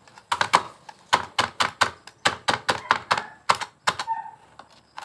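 Chef's knife chopping lemongrass stalks on a plastic cutting board: rapid knife strikes against the board, about five a second, stopping about four seconds in.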